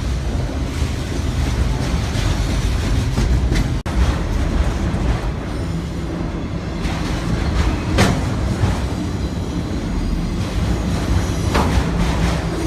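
Train rolling along a street-running track: a steady low rumble of wheels on rail, with a sharp clack about eight seconds in and another near the end. The sound cuts out for an instant about four seconds in.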